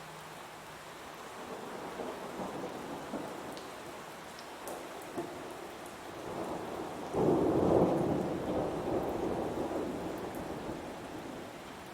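Heavy rain falling steadily with thunder: a low rumble swells within the first couple of seconds, then a louder thunderclap breaks about seven seconds in and rolls away, slowly fading.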